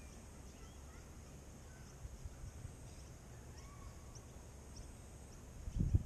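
Faint outdoor ambience: scattered short bird chirps over a steady high insect hum and a low wind rumble on the microphone, with a louder low rumble or thump near the end.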